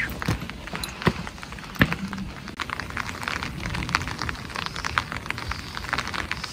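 Light rain pattering, with drops ticking irregularly and many times a second close by, over a low rumble.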